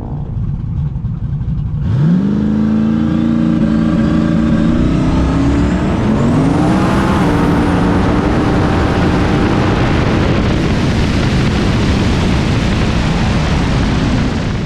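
Fox-body Mustang drag car launching hard on a street hit: the engine note jumps up sharply about two seconds in, climbs again around six seconds, then holds as a loud, steady rush of engine and road noise at speed.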